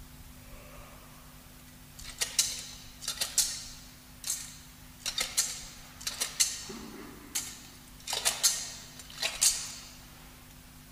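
A metal thurible swung on its chains toward the altar, clinking in close pairs of sharp metallic strikes for about eight seconds. These are the double swings of incensing the Blessed Sacrament.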